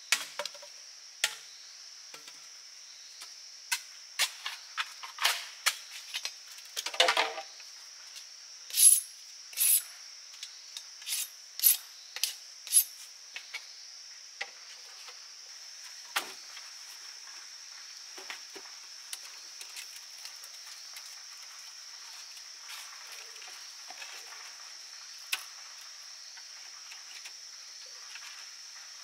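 Hollow bamboo poles clacking and knocking against each other as they are laid into a slatted platform, a run of sharp knocks in the first half and a few scattered ones later. A steady, high-pitched drone of insects runs underneath.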